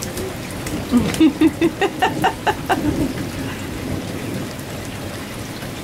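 Steady rain falling, with a toddler's voice making a quick run of short repeated sounds, about four a second, between about one and three seconds in.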